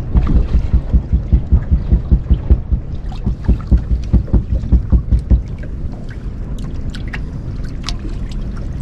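Small waves slapping against a boat's hull in quick low thumps, about four or five a second, easing after about five seconds into a steadier low rumble with a few light clicks.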